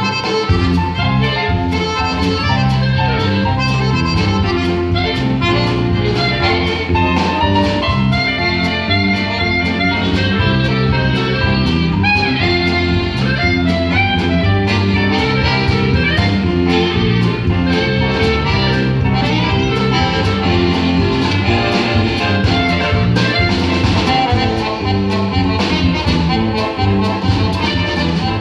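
Live instrumental ensemble playing a lively tune with a steady beat.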